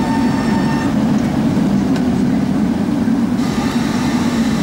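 Tatra T3 trams passing close by on street rails, a loud, steady rumble of wheels and running gear.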